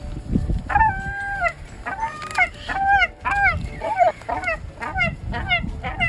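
Gulls calling: a few long, drawn-out calls early, then a quick run of short, falling calls, about three a second, through the second half.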